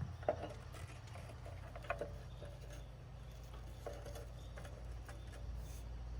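A few scattered light metallic clicks and knocks of hydraulic valve handles on a mini excavator's thumb lines being turned shut by hand, over a steady low hum.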